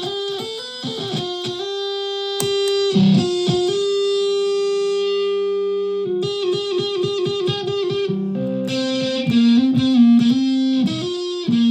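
Solid-body electric ukulele played through a home-built clone effects pedal and a small PA speaker. It plays quick picked notes rich in overtones, with one long held note about two seconds in, then more picked runs.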